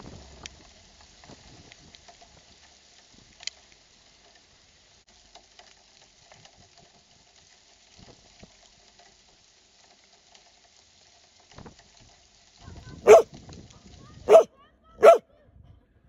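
A dog barking three times in the last few seconds, short sharp barks less than a second and a half apart. Before that there is only a faint steady hiss.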